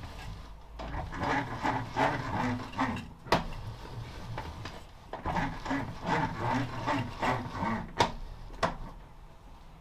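Smart & Brown lathe carriage being moved back and forth along the bed past the newly fitted DRO linear scale: two stretches of rattling and rubbing, with sharp knocks near the ends of the travel, three in all.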